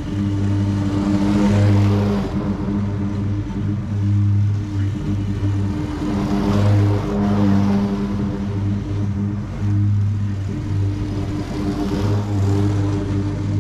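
Walk-behind gas lawn mower running steadily while cutting wet grass, with a swell of hissing noise every few seconds.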